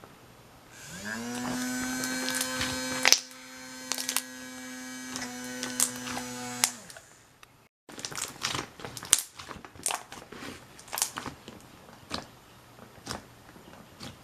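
A steady buzz holds one pitch for about six seconds, sliding up as it starts and down as it stops. After a short break, slime being squeezed and poked gives scattered sharp clicks and pops.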